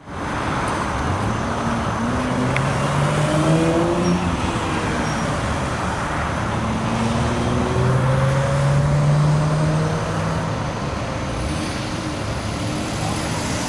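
Road traffic: a steady mix of vehicle engines running and cars passing by on the road.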